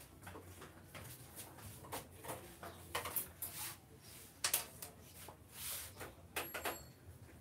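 Screwdriver and screws clicking and knocking against the sheet-metal scanner frame of a Canon iR3300 copier as its plate screws are taken out: irregular scattered clicks, the loudest a little after halfway, with a short metallic ring near the end.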